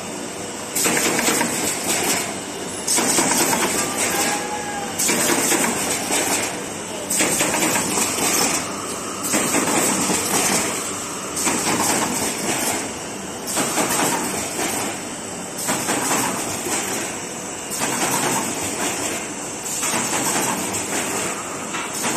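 Automatic carton partition inserter machine running, with a loud burst of noise in each cycle that rises and falls about every two seconds over a steady background machine noise.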